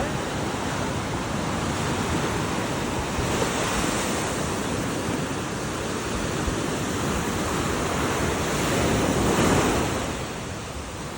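Ocean waves washing ashore as a steady rush of surf. It swells a little early on and then to a louder surge near the end before easing off.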